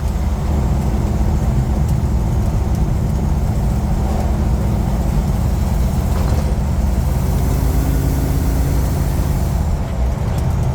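1976 Jeep CJ7's AMC 304 V8 running steadily as the Jeep drives along, with road noise. A steady low drone, with a clearer engine note from about the seventh to the ninth second.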